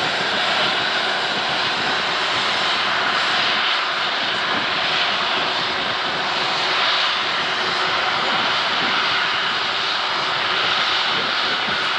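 Airbus A330-243 MRTT tanker's Rolls-Royce Trent 772B turbofans running at taxi power as the aircraft rolls slowly along the taxiway: a steady, even jet noise.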